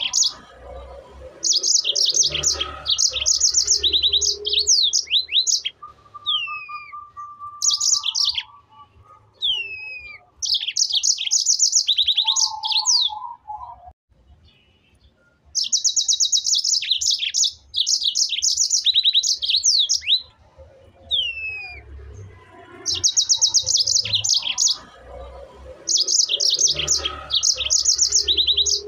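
A songbird singing in repeated bursts of very rapid, high trills mixed with short down-slurred whistles, each phrase lasting a couple of seconds with brief pauses between. There is a longer pause about two-thirds of the way through.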